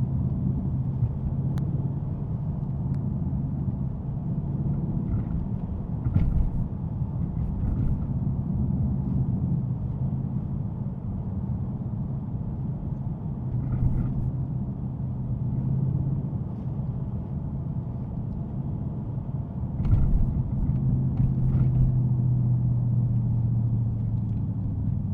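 Dodge Scat Pack's 392 HEMI V8 droning steadily while driving, with road noise underneath. Three louder short thumps stand out along the way.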